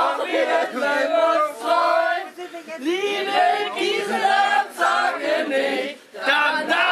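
A group of men and women singing a song together.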